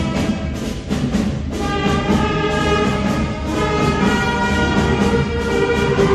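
Elementary-school wind band playing live on stage, holding sustained notes and chords that shift every second or so.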